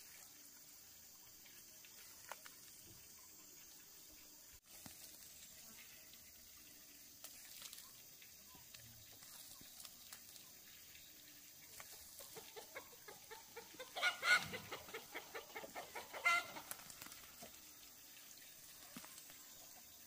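A chicken clucking in a quick run of short calls for several seconds past the middle, with two louder cries among them.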